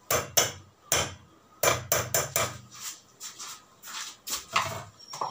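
A spoon knocking sharply against a kitchen container as chopped garlic is tapped off it: several quick knocks in the first half, then fewer, softer knocks.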